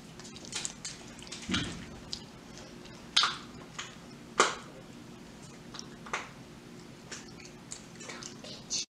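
Small wet smacks and clicks of a child eating and licking chocolate frosting off her fingers, with two sharper smacks around the middle, over a faint steady hum. The sound cuts off just before the end.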